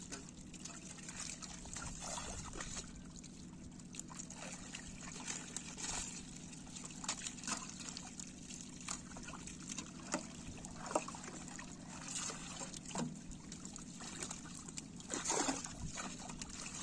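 Shallow pond water sloshing and trickling as hands scoop live fish out of a gathered net into plastic baskets, with many short splashes scattered throughout, over a steady low hum.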